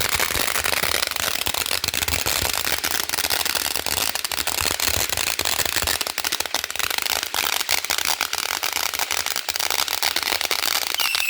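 Consumer firework crackling and popping in a rapid, dense stream of sharp cracks that never lets up. A whistling tone starts up right near the end.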